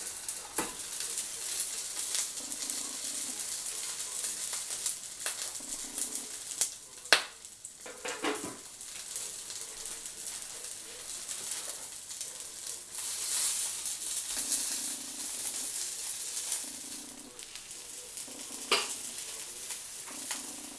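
Sausages sizzling on the hot ribbed plate of a Zelmer 40Z011 electric grill, a steady spitting hiss. A few sharp knocks and clicks cut through it, the loudest about seven seconds in.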